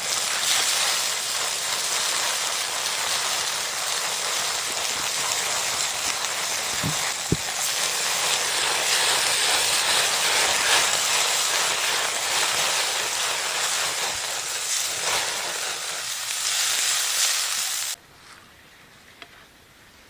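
Meat frying in hot oil, a loud steady sizzle that cuts off suddenly near the end.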